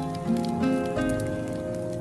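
Soft instrumental music of held notes, its chords changing every half second to a second, over the faint, scattered crackle of a wood fire burning in a stove.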